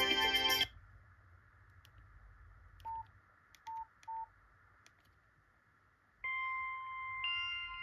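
Nokia 8800 Arte mobile phone: a ringtone cuts off under a second in. Three short single-pitch beeps from the phone's keypad follow, one and then two close together. About six seconds in the next ringtone starts with steady electronic tones that step up in pitch.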